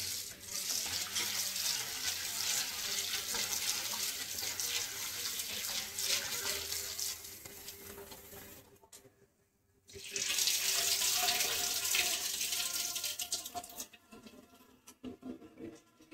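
Kitchen tap running into a steel bowl while dal is rinsed by hand, water splashing over the lentils. The water stops briefly about nine seconds in, runs again for a few seconds, then gives way to a few light knocks.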